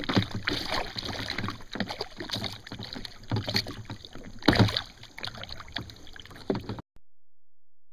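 Water splashing and knocking against the side of a kayak as a hooked bass is fought at the boat, in irregular bursts with the loudest about four and a half seconds in. The sound cuts off abruptly near the end.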